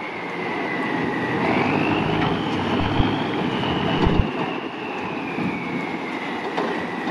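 M35A1 army truck's 7.8-litre White multifuel turbo diesel working under load as it tows a stuck truck out of soft ground, with a high whine that rises about two seconds in, holds, then slowly falls. Two low thumps come about three and four seconds in.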